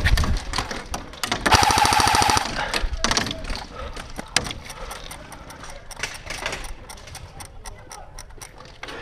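Airsoft rifle firing a rapid full-auto burst lasting about a second, a fast rattle of shots, followed by scattered single shots and knocks.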